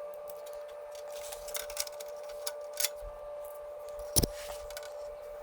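Light, scattered clicks and taps of parts and hand tools being handled, with one sharper knock about four seconds in, over a steady faint hum.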